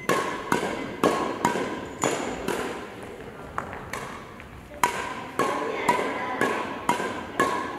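Badminton shuttlecock being struck by rackets in quick succession: sharp hits about twice a second, each with a brief ring.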